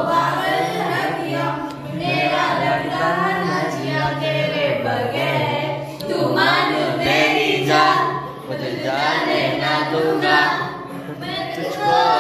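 Music: a song with layered, choir-like sung vocals over a steady low bass line.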